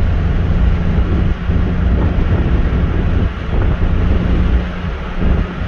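In-cabin sound of a 2014 Mitsubishi Mirage's three-cylinder engine pulling at about half throttle through its replacement CVT, holding a steady drone near 2500 rpm while road speed climbs, without surging. Heavy wind noise on the microphone and road noise run underneath.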